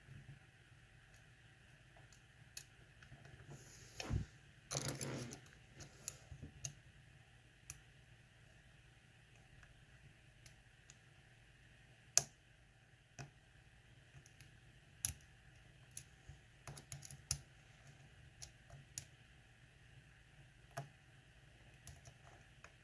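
Small, scattered metallic clicks and ticks of a lock pick and tension wrench working the pins of a lock held in a false set, with a brief rustle of handling about four seconds in.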